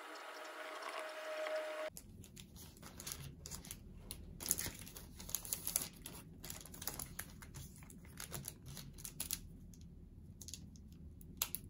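Laptop keyboard typing for about two seconds. Then comes the crinkling and rustling of paper sticky-memo pads and their plastic wrappers being handled on a desk, with irregular taps and clicks.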